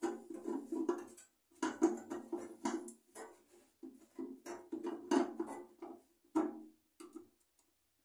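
Small screwdriver and a new microwave turntable motor scraping and tapping against the oven's sheet-metal cabinet as the motor is seated. The sound is a run of irregular clicks and scrapes that stops about seven seconds in.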